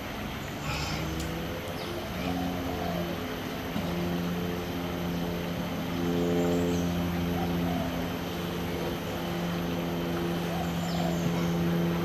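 A steady engine drone, the loudest sound, holding a nearly constant pitch and swelling slightly about six seconds in, over outdoor background hiss. A couple of short, sharp noisy sounds come in the first two seconds.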